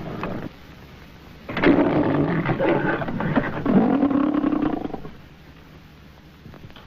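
MGM studio logo lion roaring on an early 1930s film soundtrack: the tail of one roar, then after a short pause a second, longer roar of about three seconds that dies away.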